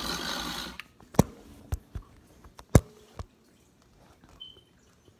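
A cheap toy RC car's small electric motor and bare plastic wheels whir on a hard floor, then cut off under a second in. A few short, sharp clicks and knocks follow, spread over the next two or three seconds.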